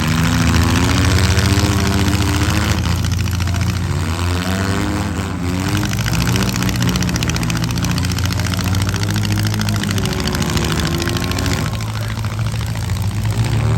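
Engines of several four-cylinder demolition derby cars running and revving, their pitches rising and falling over a continuous noisy din.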